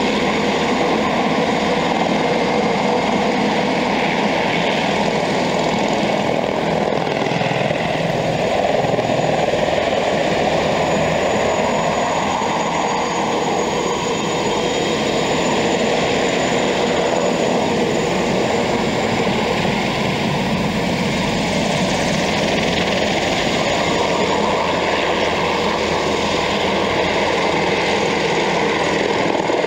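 Westland Sea King helicopter's rotors and twin turbines running steadily as it hovers low overhead and winches a man beneath it, with a faint high turbine whine in the middle.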